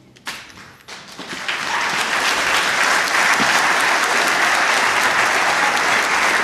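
Theatre audience breaking into applause after the orchestra's last chord: a few first claps, then the clapping swells to full, steady applause within about two seconds.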